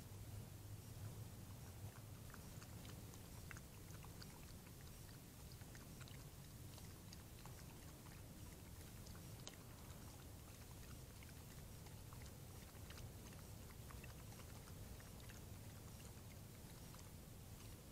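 Faint lapping as a coyote drinks from a shallow water bowl: a scatter of soft wet clicks over a steady low hum.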